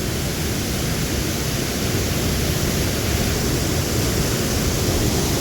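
Steady rushing of a waterfall and whitewater torrent pouring through a narrow rock gorge, an even noise with no break.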